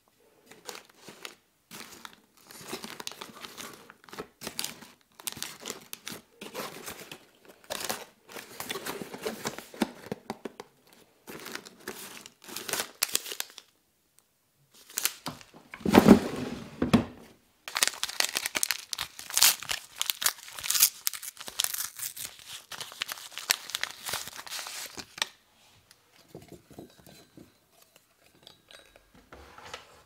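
Rummaging through paper tea boxes and tea-bag sachets in a drawer: irregular rustling and crinkling, a louder bump about sixteen seconds in, then a longer stretch of crinkling and tearing as a tea-bag wrapper is torn open.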